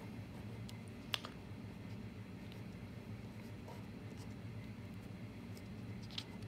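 Felt-tip marker drawing on a paper pad: faint scratching strokes, with one sharper tick about a second in, over a steady low room hum.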